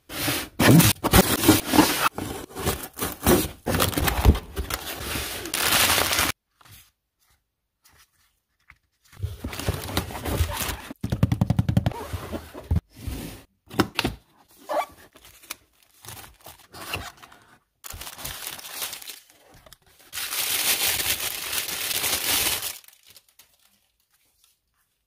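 Camera packaging being opened and handled: wrapping tearing and crinkling, with knocks on the cardboard box, in three spells separated by short pauses.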